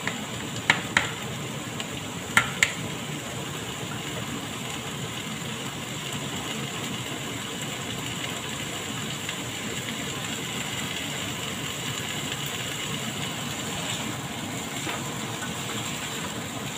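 Chicken feet tipped from a plastic colander into a hot frying pan. There are two pairs of sharp knocks, about one and two and a half seconds in, then a steady sizzle with a low hum under it.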